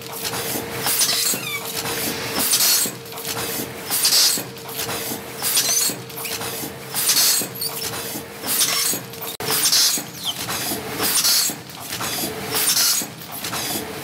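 Automatic spout-pouch filling and capping machine running, with a sharp hiss about every second and a half as its air-driven heads cycle, over a steady whine that drops out about nine seconds in.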